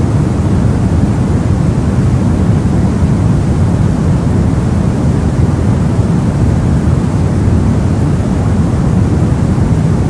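Steady white noise weighted toward the low end: a deep, even hiss that holds the same level throughout.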